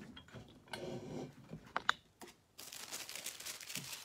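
Paper rustling and crinkling as the paper strips and transfer paper on the globe are handled, with a few sharp clicks, the loudest about two seconds in, and denser rustling near the end.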